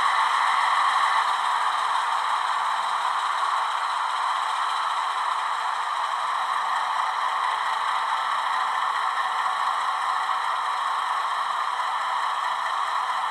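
Recorded diesel sound of an Alco 12-251B V12 engine running steadily, played by the model locomotive's ESU LokSound decoder through its small twin speakers. The sound is thin, with no deep bass, and is a little louder at first before settling.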